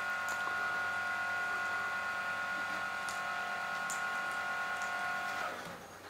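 A steady machine whine: several constant tones over a hiss. It cuts off about five and a half seconds in.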